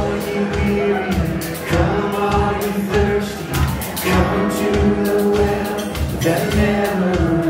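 Live worship band song: several voices singing together over acoustic guitar, electric bass and a drum kit keeping a steady beat.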